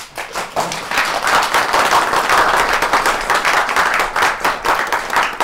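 A roomful of people applauding: a few scattered claps at first, swelling within about a second into steady, dense hand-clapping.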